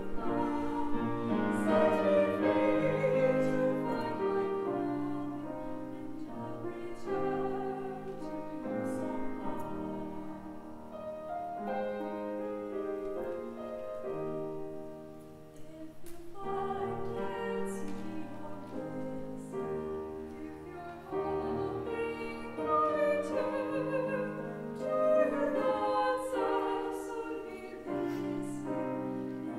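Two female voices singing a classical duet in operatic style with vibrato, accompanied by a grand piano, with a softer passage about halfway through.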